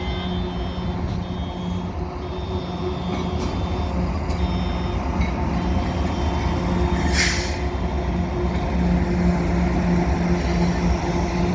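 Heavy highway traffic rumble with a steady low engine drone that grows slightly louder. A short hiss comes about seven seconds in.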